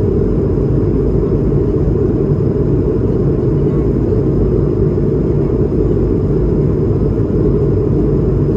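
Steady, loud cabin rumble of an Airbus A220-300 airliner: engine and airflow noise heard from inside the passenger cabin, with no change in pitch or level.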